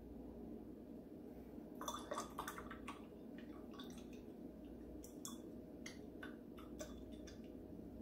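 Faint sound of a paintbrush rinsed in a glass jar of water, tapping and clinking against the glass in two spells of quick small clicks.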